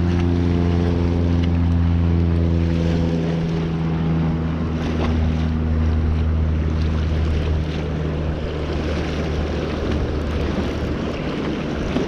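Wind buffeting the microphone, with a low, steady motor drone underneath that dies away near the end.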